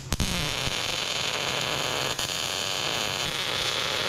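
Wire-feed welder arc sizzling and crackling steadily as a fitting is welded onto a steel air-compressor tank.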